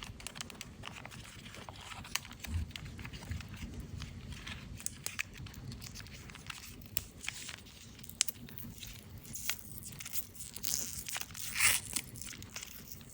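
Crinkling and tearing of a candy wrapper being unwrapped by hand: a run of small crackles and clicks, with a louder rustle of tearing near the end.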